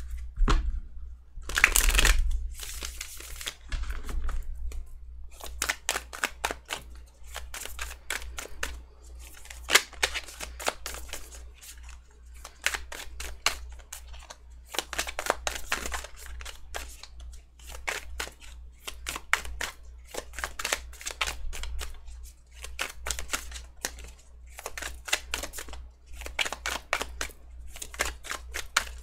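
Tarot cards being shuffled by hand: quick runs of papery card clicks and flutters in clusters of a few seconds with short pauses, over a steady low hum.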